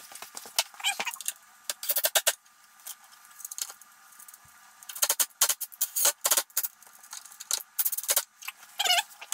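Metal tools and hardware clinking and clattering in clusters of short knocks, with a quieter stretch in the middle, as parts are handled while refitting the rear of a snowmobile tunnel.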